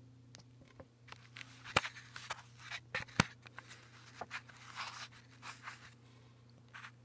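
Fingers handling and flipping a copper-nickel-zinc 25 Bin Lira coin on a velvet tray: a scatter of small scrapes and rubs with two sharp clicks, about two and three seconds in, over a low steady hum.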